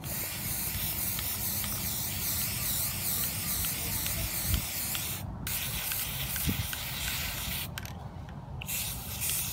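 Aerosol spray paint can hissing as brown paint is sprayed onto popsicle-stick panels, in three long bursts with short breaks about five and eight seconds in.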